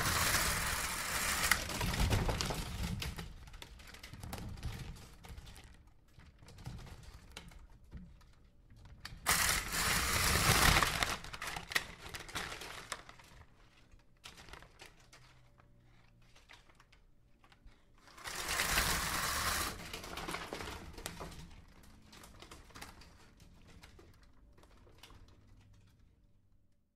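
Zipper on a plastic body bag being pulled shut in three long zips, at the start, about nine seconds in and about eighteen seconds in. Between the zips the plastic rustles and crinkles.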